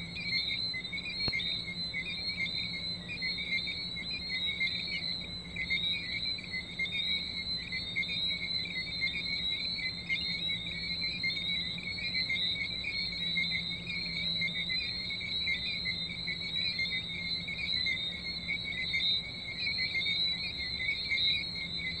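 A dense chorus of tree frogs: many short, high calls overlapping without a break at two pitches, with a faint steady low hum underneath.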